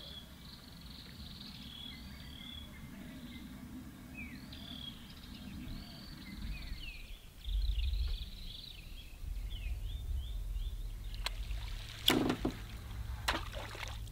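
Small birds chirping and twittering over a low rumble, which grows stronger about halfway through. Near the end come a few sharp clicks or knocks, the loudest about two seconds before the end.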